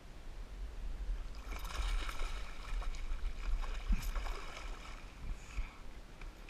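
A large hooked fish thrashing and splashing at the surface beside the boat, right at the landing net: a run of splashes lasting a few seconds, heaviest in the middle, then dying away.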